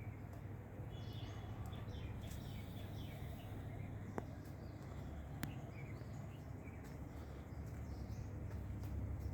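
Outdoor ambience: a steady low rumble with a few faint bird chirps, and two sharp clicks about four and five and a half seconds in.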